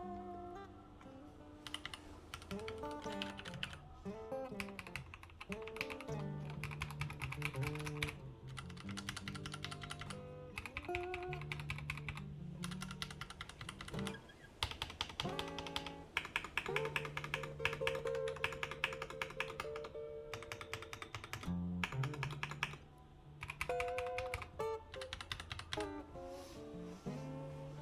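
Typing on a FiiO KB3 mechanical keyboard: rapid key clicks in bursts with short pauses, over background acoustic guitar music.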